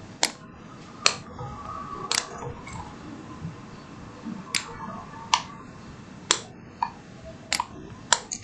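Computer mouse clicks: about nine single sharp clicks, spaced irregularly roughly a second apart.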